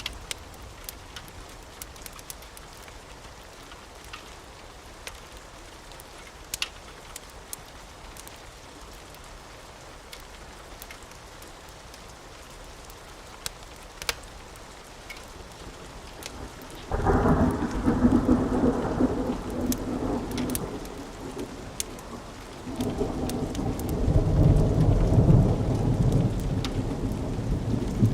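Steady rain with scattered sharp crackles from a wood fire. A little past halfway a loud roll of thunder breaks in suddenly, and a few seconds later a second, deeper rumble follows.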